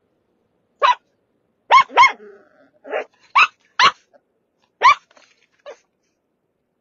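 Brussels Griffon barking: about seven sharp, high yaps in quick succession, two of them back to back about two seconds in, and a fainter one near the end. This is the anxious barking of a dog with separation anxiety.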